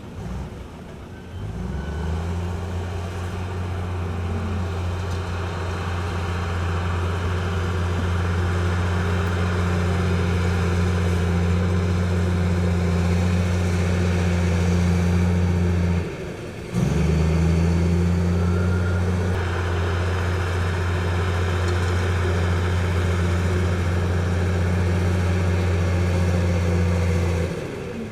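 Heavy diesel engine of earthmoving machinery running steadily with a low, even drone. It drops out abruptly for a moment about sixteen seconds in and again near the end.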